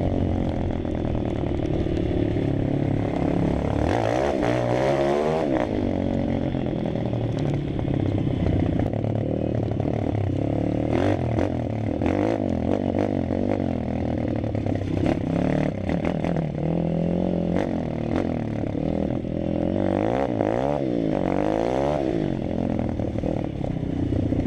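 Malcor XZF 140 pit bike engine running under way, revving up and down repeatedly with throttle and gear changes, with knocks and rattles from the bike over the rough ground.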